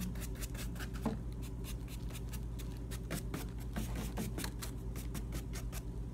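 Paintbrush dabbing and stroking paint onto a glittered purse surface: short, scratchy brush strokes, several a second.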